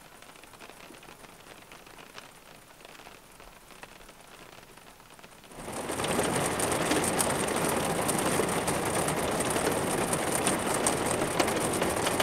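Quiet at first, then a thunderstorm downpour sets in suddenly about halfway through: a steady dense hiss of heavy rain with single drops ticking.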